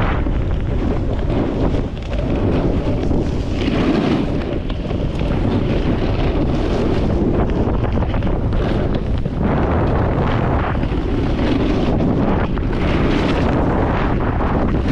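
Wind buffeting the microphone of a camera moving fast downhill, a steady loud rumble. Over it the hiss of edges scraping across packed snow swells and fades with each carved turn, every second or two.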